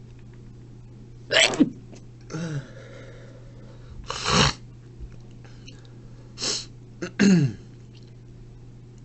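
A person sneezing three times, about three seconds apart, with quieter voiced breaths between the sneezes.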